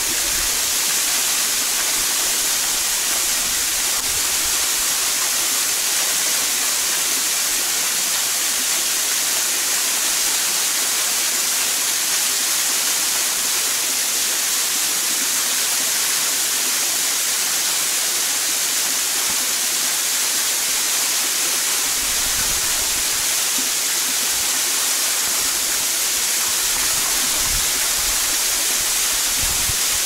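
Small waterfall pouring down a rock face into a pool: a steady, bright rush of falling and splashing water.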